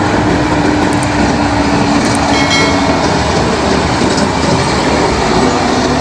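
Heavy dump trucks driving past on a gravel haul road: a loud, steady rumble of engines and tyres, with a steady engine note that drops away about two and a half seconds in.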